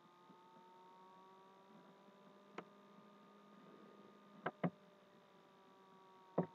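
Faint steady hum made of several held tones, broken by a few short sharp clicks: one, then a quick pair about four and a half seconds in, then one more near the end.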